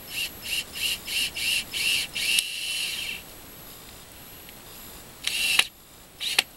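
Hen cackling: a quick run of short clucks, about three a second, ending in a longer drawn-out squawk. Two short, louder bursts follow near the end, the first the loudest sound here.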